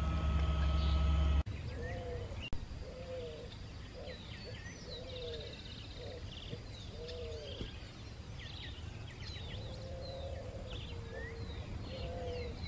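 A remote-controlled bait boat's motor hums steadily and cuts off abruptly about a second and a half in. Then several birds call: a repeated low, arched call about once a second, mixed with many short high chirps and whistles.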